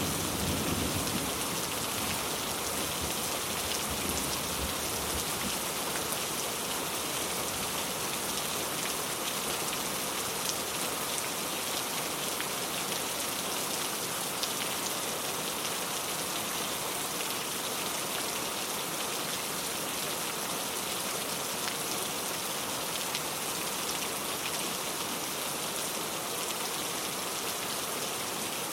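Steady rain falling and pattering on surfaces in an even hiss. The last of a thunder rumble fades out over the first few seconds.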